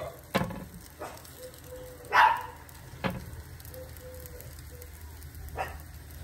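A light sizzle of a little oil heating under thick tortillas on a steel comal, with a few sharp clicks and taps. A short animal call comes about two seconds in.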